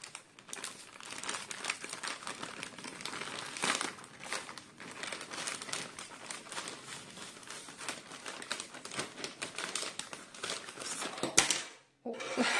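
Plastic shipping bag crinkling and rustling as it is shaken and handled: a dense, continuous run of crackles, with one sharp click near the end.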